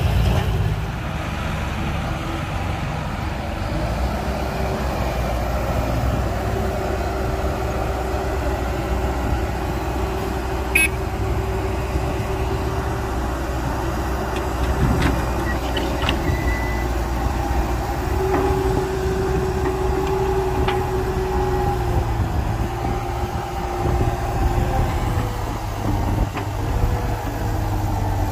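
Heavy diesel earthmoving machinery, an excavator loading a dump truck, running steadily with a low engine rumble and a droning tone that comes and goes and shifts in pitch as the machine works. A single sharp click about eleven seconds in.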